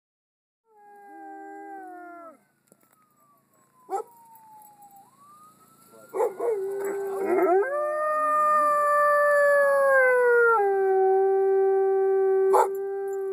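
Dogs howling along with a siren: a short howl first, then a faint siren wailing down and back up, then from about six seconds in several dogs howling together in long, overlapping, sliding notes.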